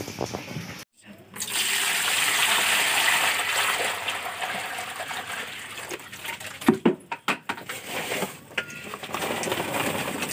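Water being poured into a plastic tub, a steady gushing splash for several seconds, then a few sharp knocks and lighter splashes as vegetables are tipped into the water.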